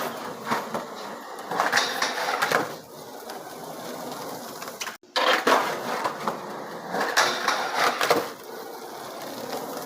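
Skateboard wheels rolling on pavement, with louder scraping stretches as the board grinds along a curb in slappy grinds. The sound cuts off abruptly about halfway through and the same roll-and-grind pattern starts again.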